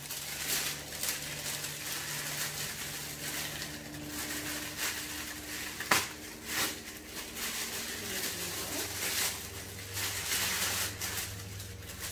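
Tissue paper crinkling and rustling as hands unwrap a box, in repeated handling strokes, with one sharp click about six seconds in.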